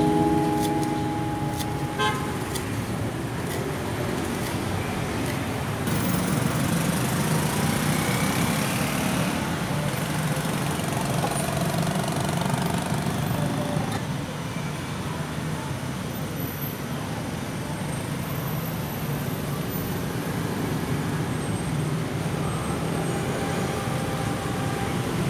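Steady road traffic noise, a low rumble with faint passing engine tones. There are a few sharp taps near the start.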